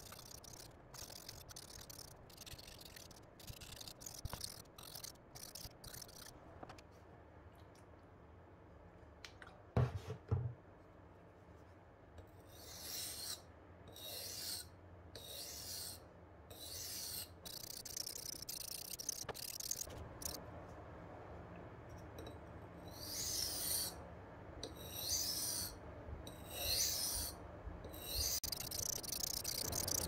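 Steel knife blade being sharpened with quick, even scraping strokes across an 800-grit diamond plate, then slower strokes of about one a second on a synthetic whetstone. Two loud thumps come just before and after the tenth second.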